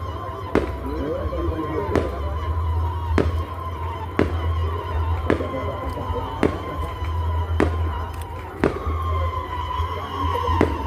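Fireworks going off in a steady sequence, a sharp bang about once a second. A steady low hum and a faint high tone run underneath.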